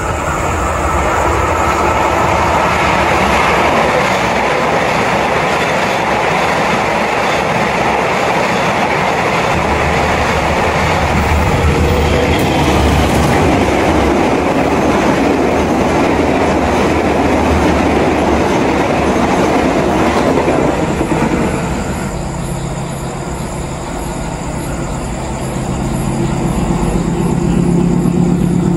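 A train passing close by, its wheels and carriages rushing over the rails in a loud, steady noise. About 21 s in the rush eases off, and a low steady engine hum then grows louder toward the end.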